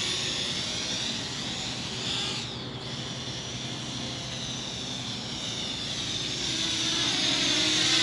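Parrot Anafi quadcopter's propellers whining in flight, the pitch sliding up and down as it manoeuvres. The whine fades a little after two seconds in and grows louder again toward the end.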